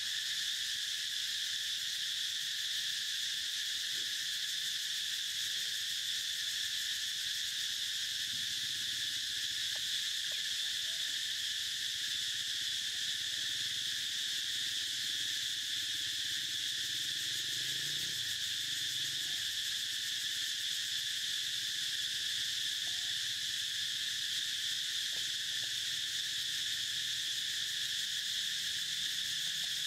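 Steady chorus of insects, an unbroken high-pitched drone that holds the same level throughout.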